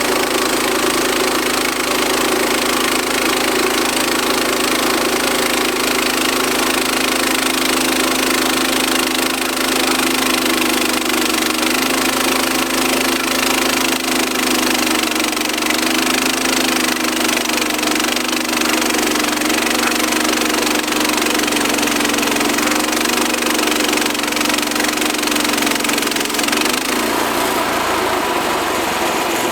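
Engine of a Frontier portable bandsaw sawmill running steadily, a loud drone whose pitch wavers slightly. Near the end the engine note changes.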